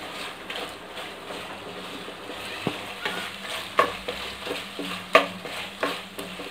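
Wooden spatula stirring and scraping chicken in a thick masala in a kadai, over a light sizzle. Several sharp knocks of the spatula against the pan come in the second half.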